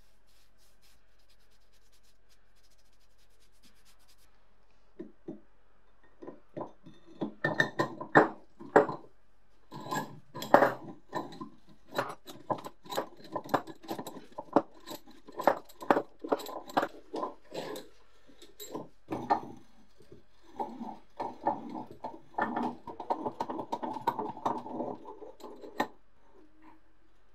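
An irregular run of sharp metal knocks, clinks and rubbing, as from steel vise parts being handled and worked by hand. It starts about five seconds in and keeps up until near the end, busiest in the first few seconds.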